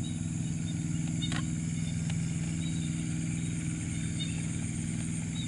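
A small engine running steadily at one speed, giving a constant low hum.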